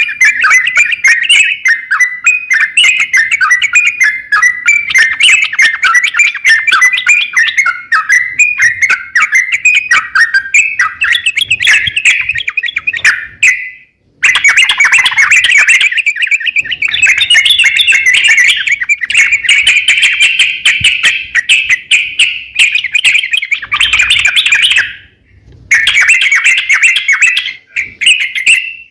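Crokcokan (yellow-vented bulbul) singing continuously in a dense run of rapid chattering and warbling notes. The song breaks off briefly about 14 seconds and again about 25 seconds in.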